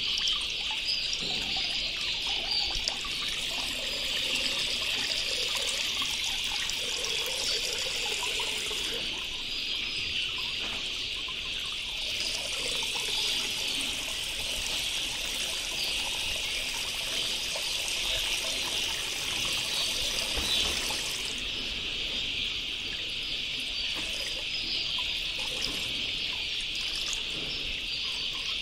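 Milk poured from a plastic packet into a bucket of water, trickling and splashing, in two long pours with a short break between. The milk is being mixed into the drinking water for vaccinating chicks. A steady high insect chirring carries on behind.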